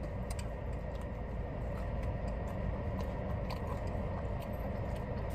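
A person chewing food with faint, scattered clicks of handling it, over a steady low rumble in a car cabin.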